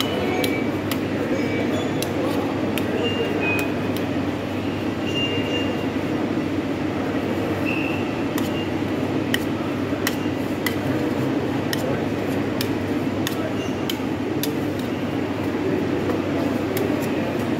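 Metal spatulas scraping and tapping on a stainless-steel rolled-ice-cream cold plate, giving many sharp irregular clicks and a few short squeaks, over a steady background din.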